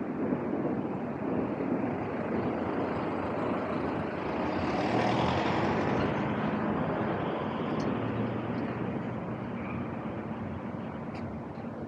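Street traffic: a motor vehicle passes close by, its engine and tyre noise swelling to a peak about five seconds in and then fading, over steady road noise.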